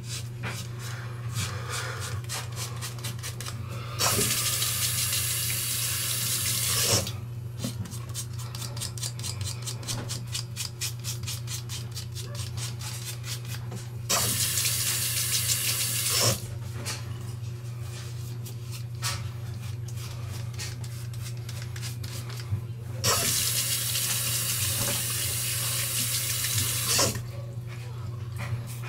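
A water tap runs at a sink three times, for about three seconds each, starting about four, fourteen and twenty-three seconds in. Between the bursts there is a steady low hum from the vibration motor of a Gillette ProGlide Power razor, with short scraping strokes of its blades on stubble.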